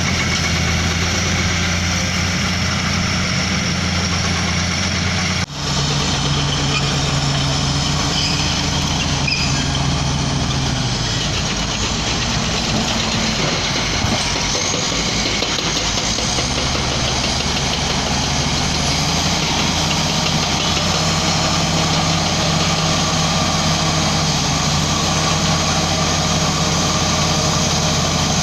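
Heavy diesel earthmoving machinery running steadily. The sound breaks off abruptly about five seconds in and carries on with a different engine note, which drops lower for a few seconds mid-way and then comes back up.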